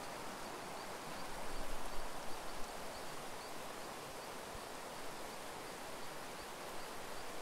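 Steady outdoor forest ambience, an even hiss, with a faint high chirp repeating about twice a second through the first half.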